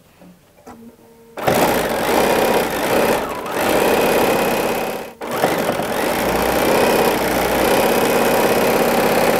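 Bernina B 790 sewing machine running at speed, sewing a straight-stitch hem. It starts up about a second in and stops briefly around the middle before running on.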